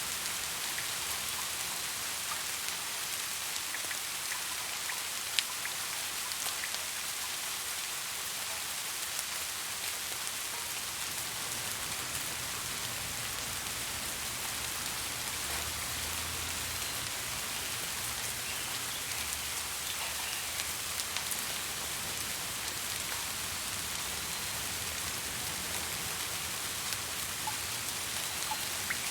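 Steady rain falling, a dense even hiss with scattered individual raindrop ticks, one sharper drop about five seconds in.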